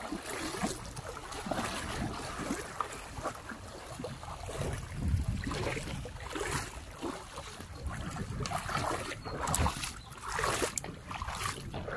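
River water sloshing and splashing in uneven strokes as people wade across on foot.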